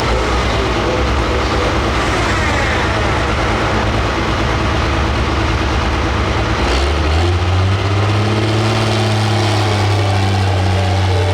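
Hot farm pulling tractor's big diesel engine running loud and steady under power, its pitch stepping up about two-thirds of the way through.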